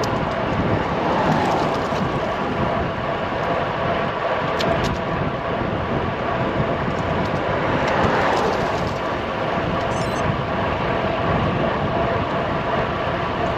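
Wind rushing over the microphone while riding a road bike, with tyre noise: a steady, loud rushing that barely changes.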